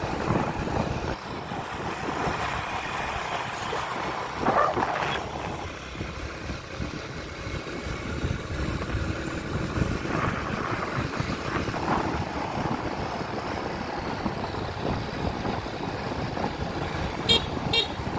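Steady wind and road noise of riding along a paved road. A brief louder sound comes about four and a half seconds in, and a quick run of high clicks near the end.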